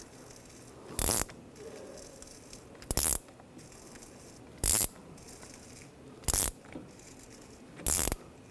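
Ratchet clicking in five short bursts, spaced a little under two seconds apart, as a brake caliper piston wind-back tool is turned clockwise to screw the rear caliper piston back into its bore.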